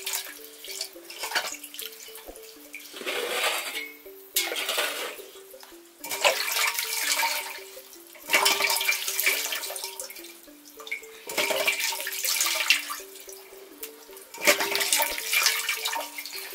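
Water splashing and sloshing in a stainless steel basin as a smoked fish is washed by hand, in repeated bursts of a second or two, with water pouring off the fish as it is lifted out. Background music with a simple stepping melody plays underneath.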